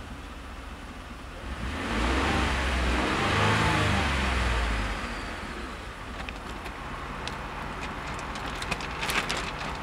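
2013 Ford F-150's 3.5 EcoBoost twin-turbo V6, heard from inside the cab, idling in Park and revved once. It rises about a second and a half in, holds near 2,700 rpm for about three seconds, then drops back to a steady idle. A few light clicks come near the end.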